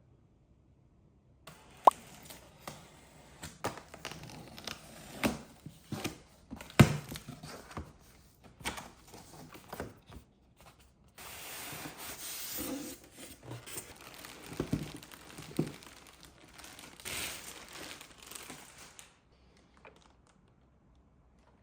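Packaging being handled and torn open: crinkling and tearing with several sharp clicks and knocks, one longer continuous tear partway through, starting shortly after the start and stopping a couple of seconds before the end.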